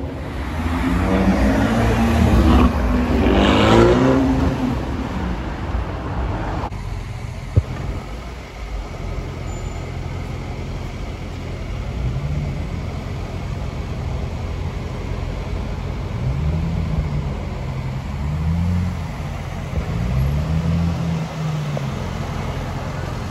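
A car engine revving hard and accelerating away, its pitch climbing in repeated rising sweeps for the first several seconds. After an abrupt change, slower traffic follows, with a sharp click and then an engine blipped a few times, each rev rising and falling in pitch.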